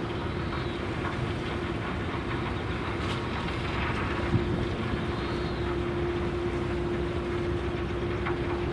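Steady low outdoor rumble with a constant hum running under it, and one short sharp click about four and a half seconds in.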